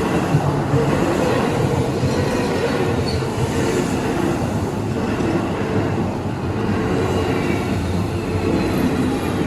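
Keio Line electric train passing at close range, a loud steady rumble of wheels on the rails that builds up just before and holds throughout.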